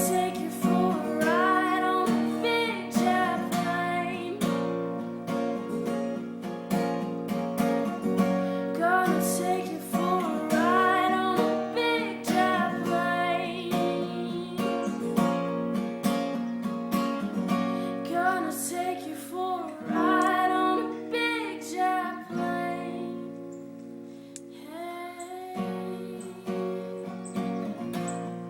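Background song: strummed acoustic guitar with a woman singing.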